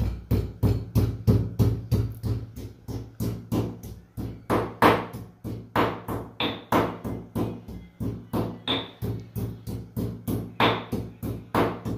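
Stone pestle pounding ginger in a stone mortar: a steady rhythm of knocks, about four to five a second, a few strikes harder than the rest.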